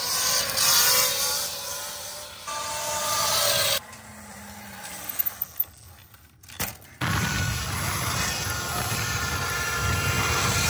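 Sur-Ron electric dirt bike riding in wheelies: electric motor whine and drivetrain noise, the pitch rising and falling with the throttle. About four seconds in the sound drops away to a quieter stretch with a few sharp clicks, then returns a few seconds later as a louder, deeper, steadier rumble.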